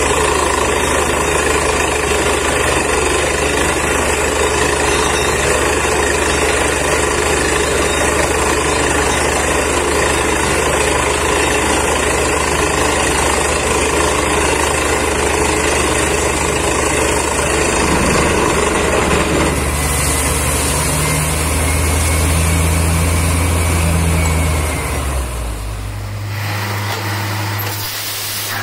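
Truck-mounted borewell drilling rig running loud and steady, its engine and air compressor driving the drill. About twenty seconds in the sound changes, and near the end it drops to a quieter, lower engine note as the rig eases off.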